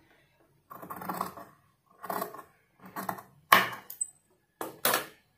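Tailor's scissors cutting through layered blouse-sleeve fabric, trimming off the extra seam allowance: five crisp snips, about one a second.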